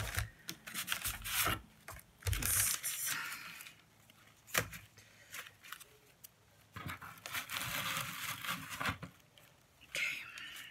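Paper bag and small herb packets rustling and crinkling as they are handled and opened, in several short spells, with a sharp tap near the middle.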